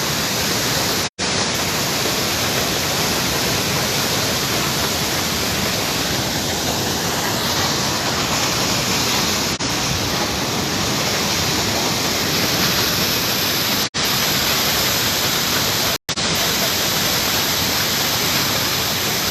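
Waterfall rushing, a loud, steady noise close to the microphone, cut off for an instant about a second in and twice more later on.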